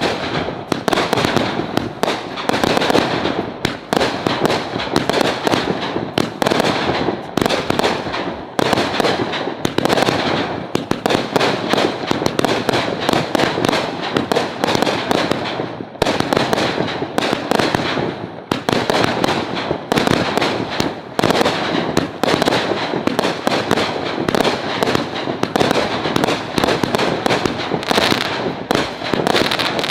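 Consumer 500-gram-class compound firework cake firing rapid-fire: a dense, continuous string of shots and bursts following one another with no pause.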